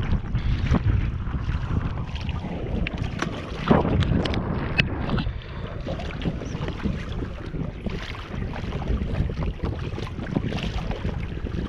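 Wind buffeting the microphone of a camera mounted on a fishing kayak at sea, a steady low rumble, with water against the hull and scattered clicks and knocks from fishing rods and gear being handled; one louder knock comes about four seconds in.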